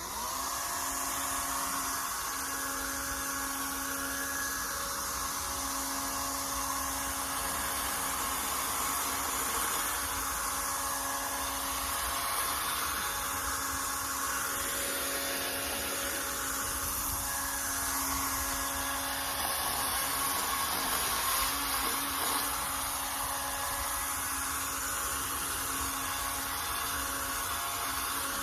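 Electric motor of a battery power tool starting up and running steadily, with a constant whine over a hiss.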